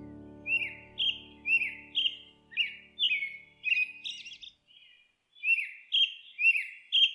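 A bird calling over and over: short chirps that drop in pitch, about two a second, with a short pause a little past the middle. A held piano-like chord fades out during the first few seconds.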